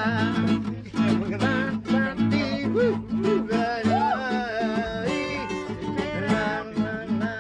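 A man singing while strumming an acoustic guitar, chords struck at a steady beat under the voice.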